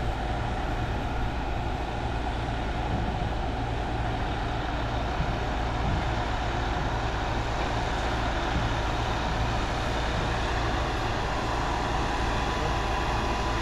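Concrete pump truck running steadily while pumping concrete: an even diesel drone with no break or change.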